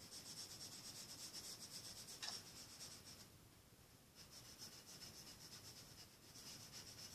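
Faint scratching of a pencil on drawing paper, which drops away for about a second midway and then resumes.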